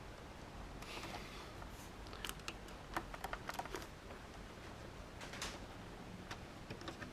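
Faint scattered clicks and light rustling of hands working at a multi-pin wiring connector in a cramped spot, with a quick run of sharp clicks a couple of seconds in and another click a few seconds later.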